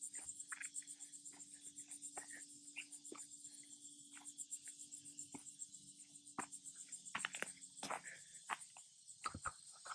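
Footsteps on dry pine needles and twigs along a woodland trail, irregular light crackles and rustles, over a steady high-pitched insect chorus with a fast pulse.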